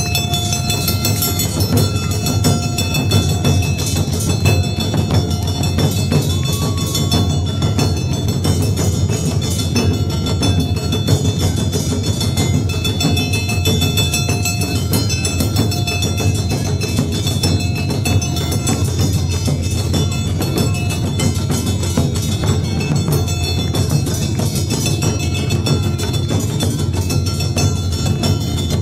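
An Awa Odori festival band playing on the march: large barrel drums carried on shoulder straps, beaten in a steady, dense rhythm, with metal clanging and ringing tones over them.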